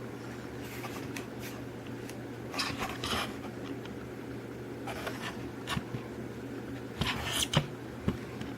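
Hands handling a die-cast toy car: scattered light clicks, rubs and rustles, busiest about a third of the way in and again near the end, over a steady low hum.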